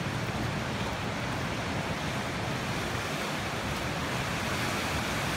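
Storm surf on Lake Superior breaking along the shore: a steady rushing noise of waves, with some wind on the microphone.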